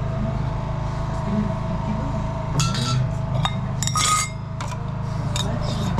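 Ceramic teapots and their metal lids clinking together as they are handled, a few sharp clinks in the middle with a brief ring, over a steady low hum.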